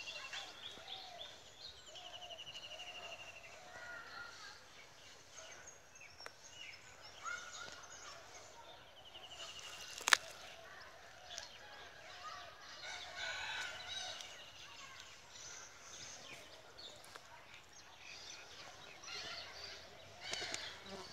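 Outdoor birds calling and chirping: rapid, high-pitched trills twice, with scattered shorter calls between, some low enough to be village chickens. One sharp click about ten seconds in is the loudest moment.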